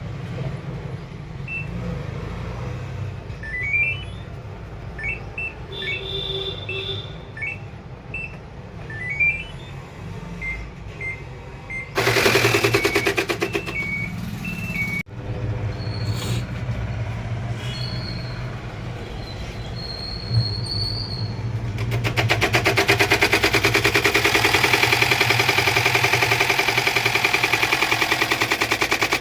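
Samsung washing machine: short electronic beeps from its control panel over a steady motor hum, then, from about 22 seconds in, a loud, fast, even rattle as the drum spins. This is the noise fault at the machine's top door.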